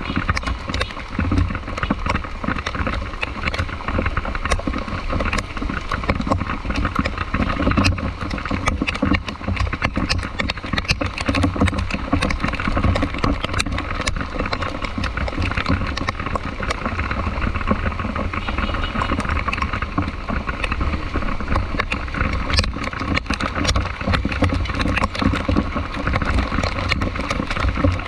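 Steady vehicle engine and road noise in rain traffic, a low rumble with many scattered ticks throughout.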